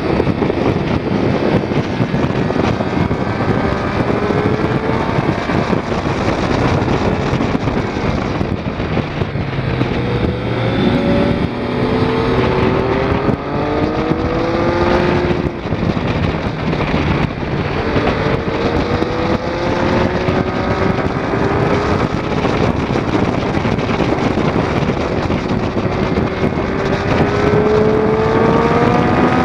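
Triumph Daytona 675's three-cylinder engine revving up again and again, its pitch climbing in steps as it runs through the gears, under heavy wind noise on a bike-mounted camera's microphone.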